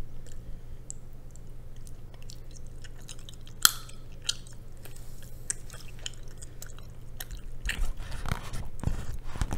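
Close-miked chewing of cheese rabokki, chewy rice cakes and noodles, with soft wet mouth clicks and one sharp click about three and a half seconds in. Near the end the eating noises grow louder and busier as the chopsticks go back into the plastic bowl.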